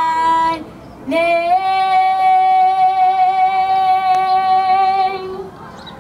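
Girls singing, holding long notes: one note ends just after the start, and after a brief pause a single long, steady note is held for about four seconds before fading out near the end.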